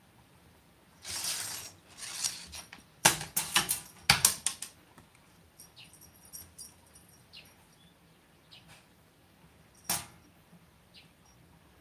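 Feather cat-teaser toy swished through the air and flicked against a wood-framed glass sliding door: two soft swishes, then a quick run of light taps and clatter about three to four seconds in, and one more sharp tap near the end.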